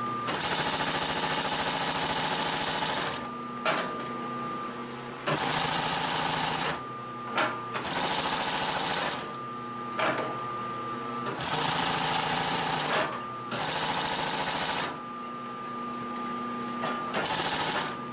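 Consew 744R-30 walking-foot (triple-feed) industrial sewing machine stitching through thick folded webbing in six short runs, each a second or three long, stopping between them. In the pauses a steady motor hum stays on and a few sharp clicks are heard.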